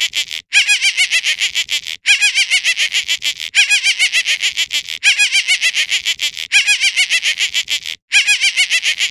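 Rapid, high-pitched chattering animal calls, many short notes a second, in phrases of about a second and a half broken by brief pauses.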